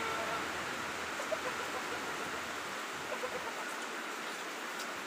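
Steady hiss of rain, with a couple of faint chicken clucks about half a second and three seconds in.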